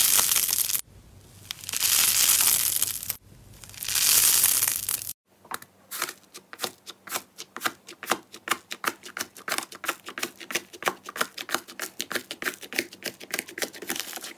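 Purple foam-textured slime stretched apart by hand, making three long crackling, tearing swells. About five seconds in it changes to a hand pressing and squishing blue foam slime dotted with small foam beads, giving rapid crackling pops and clicks, several a second.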